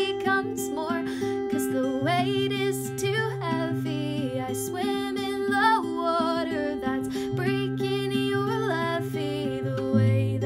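Acoustic guitar strummed with a capo on, accompanying a woman singing.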